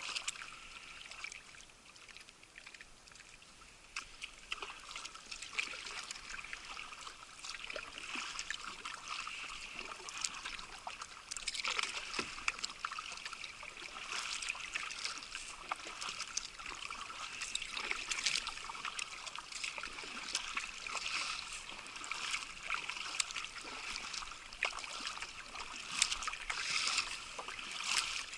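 Sea water lapping and trickling against a kayak, with many small splashes and drips. It is quieter for the first few seconds.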